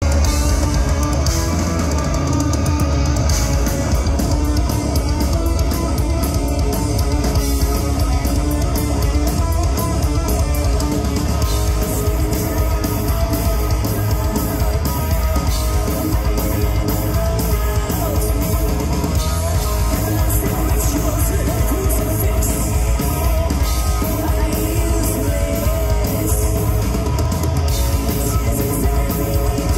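Heavy metal band playing live: distorted electric guitars, bass and drum kit driving a steady beat, with a sung vocal, heard from within the audience.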